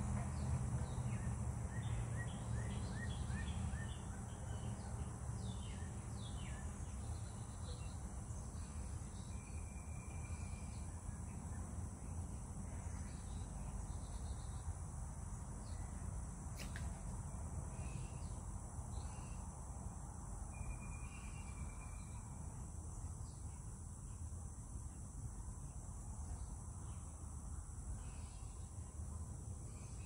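Outdoor rural ambience: scattered short bird chirps and a few brief whistled notes over a steady high-pitched insect-like drone, with a low rumble that is louder in the first few seconds.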